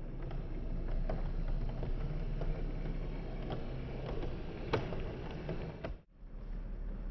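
OO gauge Heljan Class 128 parcels unit model running along the track. Its motor hums steadily and its wheels click over rail joints, with one louder click just before five seconds in. The sound drops out briefly about six seconds in.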